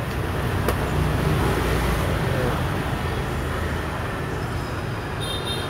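Steady road-traffic rumble, with one sharp click less than a second in.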